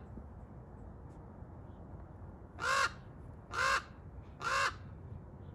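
Raven calling three times in quick succession, short calls about a second apart, starting about halfway in.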